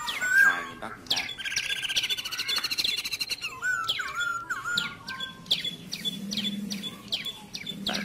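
Several small birds chirping and calling: many quick downward-sweeping chirps, a rapid trill about two seconds in, and a few whistled notes just after four seconds. A low steady hum sits underneath from about five seconds in.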